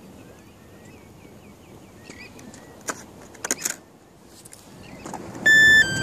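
A few sharp handling clicks around three and a half seconds in. Near the end comes a loud two-step electronic beep, a high tone stepping down to a slightly lower one, from the quadcopter's electronics or its radio transmitter as they are powered up. Faint bird chirps sound in the background.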